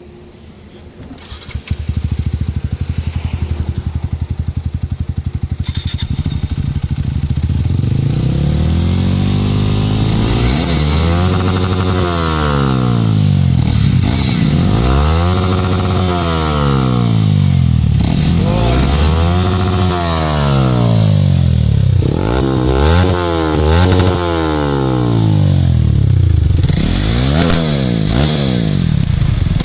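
Single-cylinder sport motorcycle with an aftermarket slip-on exhaust started up and idling, then revved up and back down about six times, two of the blips quick in succession.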